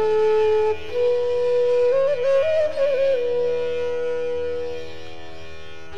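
Background instrumental music: a flute melody with small ornamented pitch bends over a steady drone, ending on a long held note that fades near the end.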